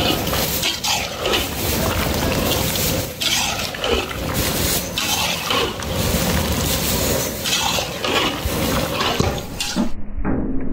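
A metal ladle stirring and scraping chicken pieces around a large iron kadai, in irregular strokes over a sizzle, as the liquid from the meat is fried off until dry.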